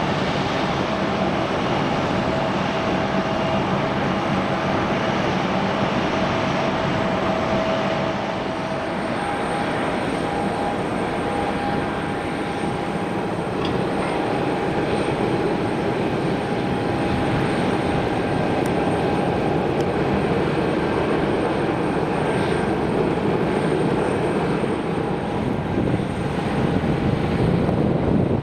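Steady jet aircraft noise on the apron: a continuous rush with a high held whine, whose pitch shifts about eight seconds in.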